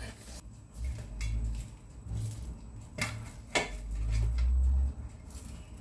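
Handling sounds as a sheet of frozen puff pastry on its backing sheet is laid over a metal baking tin on a wooden board: low bumps and thuds, with two sharp clicks about three seconds in, half a second apart.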